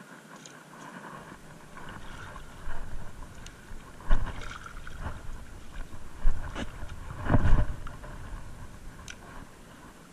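Shallow seawater sloshing and splashing in irregular surges, with the loudest swells about four and seven seconds in.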